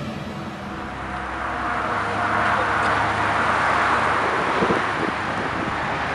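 Night street ambience with a motor vehicle passing: a rushing noise that swells for a few seconds, peaks midway, then eases off.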